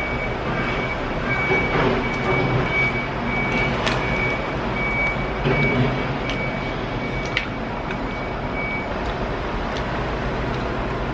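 Steady traffic hum with a vehicle's reversing alarm beeping at an even pace, stopping about nine seconds in; a few light clicks over it.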